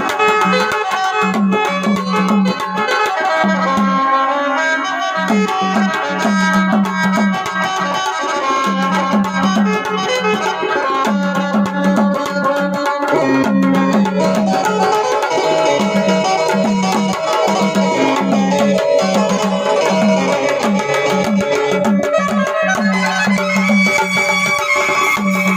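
Live band music: a drum beat with a repeating low note under sustained melody lines.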